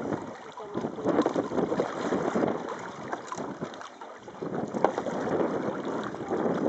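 Water splashing and lapping around a moving canoe, irregular and uneven, with wind buffeting the microphone.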